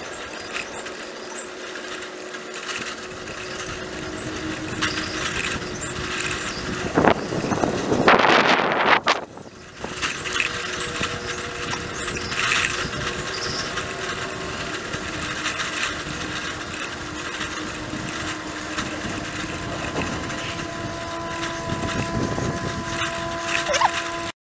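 Wind and tyre noise picked up while riding a bicycle on pavement, with a faint steady hum underneath. A louder rushing surge comes about eight seconds in, then drops out briefly.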